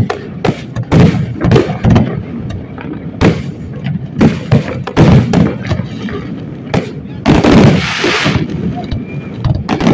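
An aerial fireworks display: shells bursting in rapid succession, dozens of sharp booms and bangs close together. About seven seconds in comes a second-long stretch of hissing crackle from glittering crackle shells.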